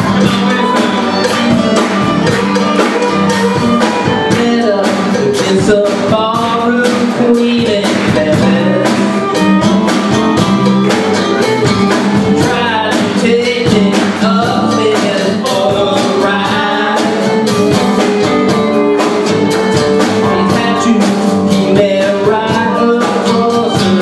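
Live country-rock band playing on stage: drum kit, electric guitar and fiddle, with voices singing.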